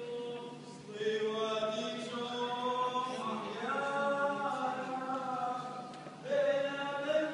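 Voices chanting a slow liturgical hymn, sustained notes held in long phrases, with a new phrase starting about a second in and again near the end.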